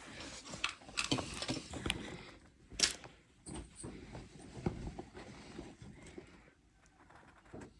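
Faint scattered clicks and rustles of small objects being handled, with one sharper click about three seconds in.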